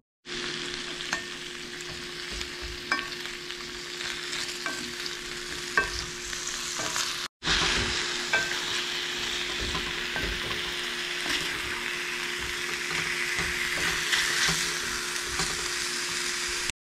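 Zucchini and squash sizzling in coconut oil in a cast iron skillet, with a utensil clicking against the pan now and then as the vegetables are stirred. A steady hum runs underneath, and the sound cuts out briefly about seven seconds in.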